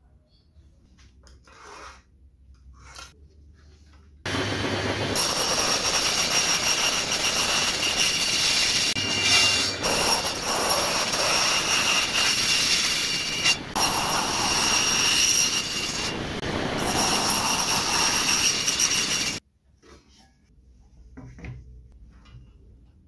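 A few faint knocks, then a circular saw that starts abruptly about four seconds in and runs loud and steady with a high whine for about fifteen seconds, cutting MDF. It stops abruptly a few seconds before the end.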